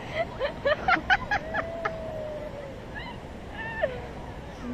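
A person's voice, not words: a run of short quick vocal bursts in the first second or so, then a long drawn-out note that slowly sinks, and two brief calls near the end, over steady background noise.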